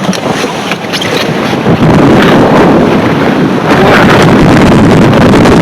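Strong blizzard wind buffeting the microphone, a dense rushing roar that gets much louder about two seconds in and stays loud.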